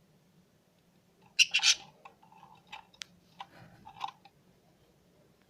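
Pet cage bird calling: a loud short call about a second and a half in, followed by several brief, sharp calls spaced over the next few seconds.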